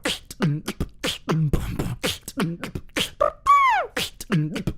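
Beatbox beat made with the mouth and voice: quick, sharp kick and snare-like hits several times a second, with a whistled tone sliding steeply down in pitch about three and a half seconds in.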